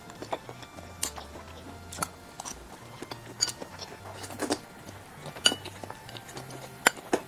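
A person eating shrimp paste: chewing and mouth smacks, with scattered short clicks of chopsticks against a ceramic bowl.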